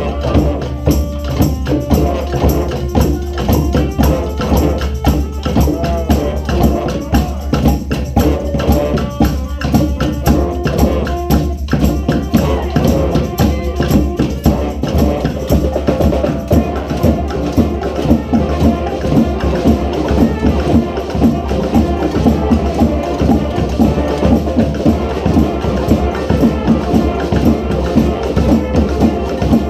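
Brass street band playing a Peruvian cumbia, horns holding the tune over a steady percussion beat.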